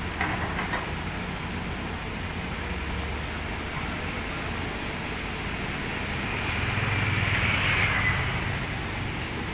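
Diesel engines of hydraulic excavators dredging mud, running steadily with a low hum. The engine sound swells louder about seven seconds in, then eases off near the end.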